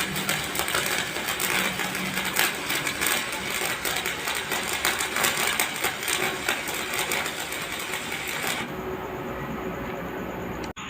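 Stick (arc) welding with a number 8 electrode on thick steel at around 230 amps: the arc crackles and sizzles steadily, then stops about nine seconds in, leaving a lower steady hum.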